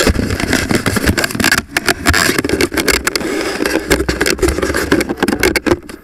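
Handling noise right on a small camera's microphone: continuous scraping, rubbing and knocking as the camera is picked up and moved about, with a low rumble underneath.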